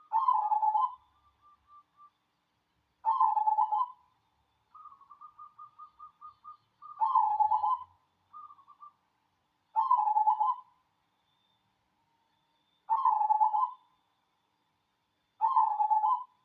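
Local zebra dove (perkutut) cooing its song six times, each short rolling phrase about every three seconds. Between the second and third phrases comes a softer run of quick, even notes.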